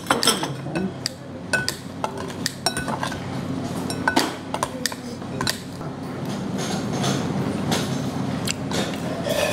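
Metal spoon clinking and scraping against a ceramic bowl while mixing rice for bibimbap, with sharp clicks coming thickest in the first half.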